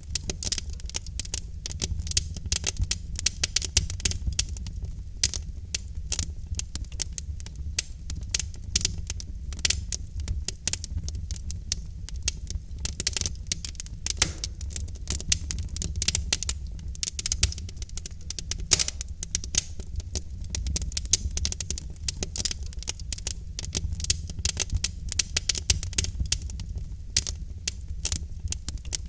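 Logs burning in a fireplace: a dense, steady run of sharp crackles and pops over a low rumble of flame.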